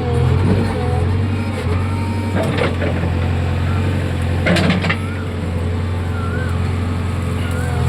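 Diesel engine of a JCB earthmoving machine running steadily, with a few short knocks over it.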